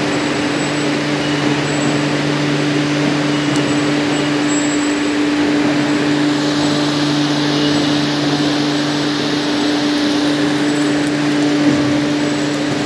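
Steady, loud industrial drone of ironworks machinery running: a constant hum over a broad rushing noise, with a lower second hum cutting in and out a few times.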